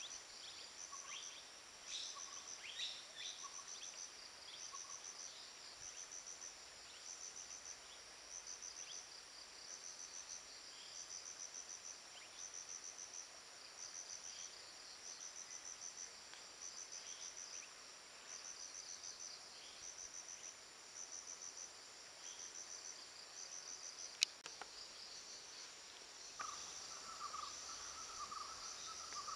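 Insects chirping in short, high-pitched bursts, about one burst a second. A single sharp click sounds a few seconds before the end, and a second, lower pulsing chirp joins near the end.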